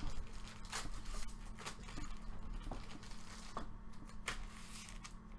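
Light rustling, crinkling and small knocks of trading card packs and boxes being handled, over a steady low hum.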